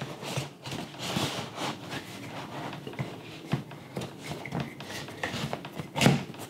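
A plastic spring shoe tree being pushed into the knit upper of a sneaker: fabric rustling and rubbing with small clicks and knocks.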